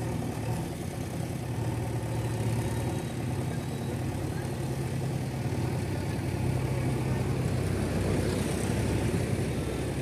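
JCB 3DX backhoe loader's diesel engine running steadily while the backhoe arm digs and lifts soil, getting a little louder in the second half as it works the hydraulics.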